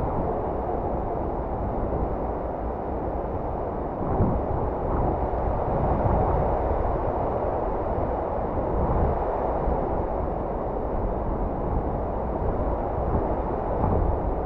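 Steady rushing noise of a fast-flowing river, with a low rumble of wind on the microphone.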